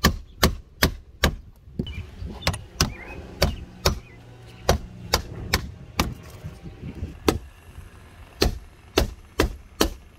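Hammer driving roofing nails into a skylight's frame, in runs of four or five sharp strikes about two to three a second, with short pauses between nails.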